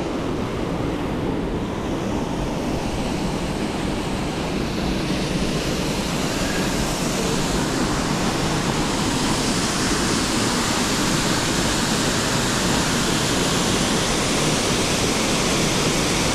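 Waterfall rushing steadily down a rock face into a rocky plunge pool, an even hiss that grows a little louder and brighter over the first several seconds.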